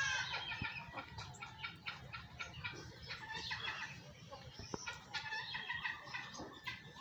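A flock of chickens clucking and calling, many short calls overlapping at once.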